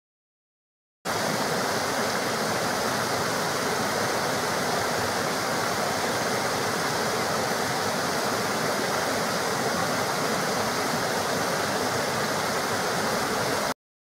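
Small waterfall on a mountain stream, water cascading over boulders into a pool: a steady rush of white water that starts about a second in and cuts off abruptly near the end.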